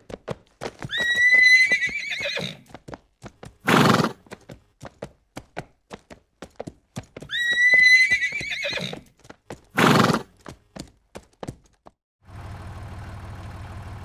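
A horse whinnying, the same call heard twice, each followed by a short breathy blast, over a steady clip-clop of hooves. About twelve seconds in the hooves stop and a low, steady engine idle begins, the sound of the cartoon tractor.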